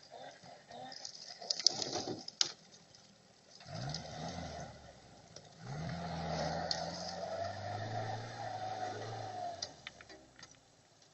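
UAZ-469 engine revving up briefly, easing off, then running for a few seconds before it stops, on a test run after repair. A few sharp knocks come just before it.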